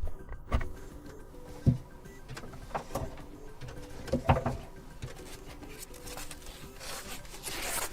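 Cardboard keyboard packaging being handled and opened by hand: a few sharp knocks and taps, then a building rustle of cardboard or paper sliding near the end.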